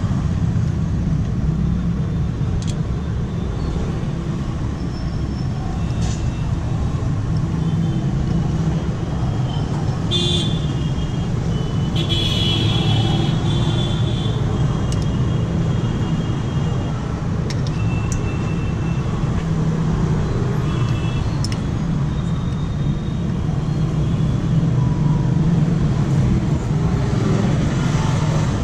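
Steady low background rumble of traffic noise, with a few faint metallic clicks of a spanner on the timing gear nut and brief faint high tones near the middle.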